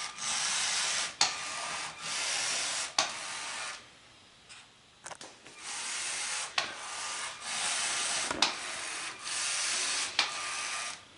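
LEGO Spike Prime robot's drive motors whirring as its wheels roll over a wood-look floor. They run in several stretches of a second or two each, as it drives straight and turns, with sharp clicks between them and a quieter pause about four seconds in.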